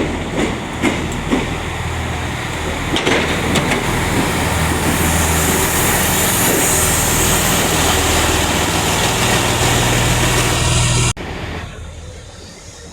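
Diesel engine of a Class 166 diesel multiple unit running steadily as the train comes into the platform, with a few sharp clicks in the first seconds and a growing hiss. The sound drops away abruptly about eleven seconds in.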